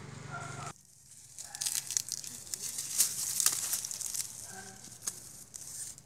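Dry corn leaves and stalks crackling and rustling as they are handled and trodden on, with dense sharp crackles from about a second and a half in.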